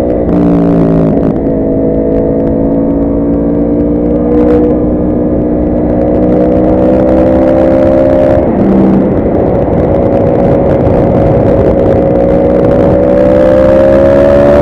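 Yamaha R1 inline-four motorcycle engine running under way, its note holding steady and slowly rising in pitch, with brief breaks in the note near the start and about eight and a half seconds in.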